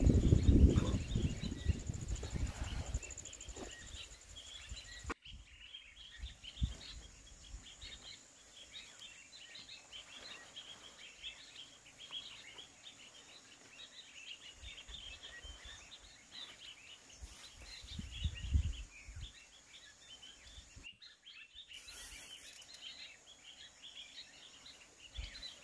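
Small birds chirping throughout over a steady faint high hum, with low rustling from cucumber vines and bamboo trellis stakes being handled, loudest at the start and again briefly about eighteen seconds in.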